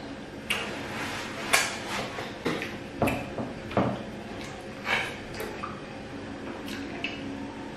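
Eating by hand at a table: a handful of short, sharp clicks and knocks from a soup bowl, plate and mug, along with the mouth sounds of eating.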